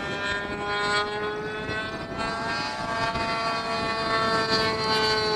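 Nitro glow engine of a model pattern-ship aeroplane running in flight, a high buzzing note whose pitch bends about two seconds in and then rises slightly as the plane manoeuvres.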